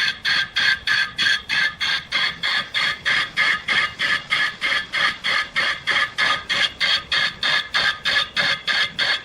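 Steady mechanical rasping in an even rhythm of about three strokes a second, as from a reciprocating workshop machine.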